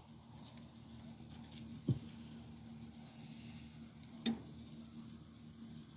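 Metal tongs turning peppers on a gas grill's grate: two light knocks, one about two seconds in and a sharper one a little past four seconds, over a faint steady hum.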